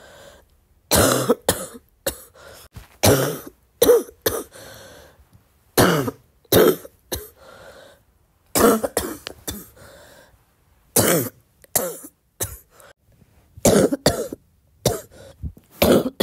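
A woman coughing with a wet, chesty cough in repeated short bouts of two to four coughs each, with brief pauses between bouts.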